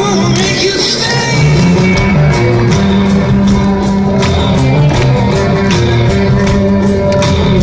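Live rock band playing over a large outdoor PA, heard from among the audience, with changing bass notes under a steady beat.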